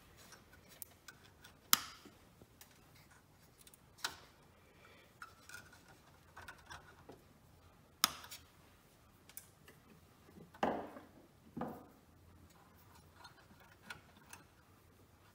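Wire cutters snipping off excess leads: three sharp snaps a few seconds apart, with small ticks and the soft rustle of wires being handled, which is loudest about two-thirds of the way through.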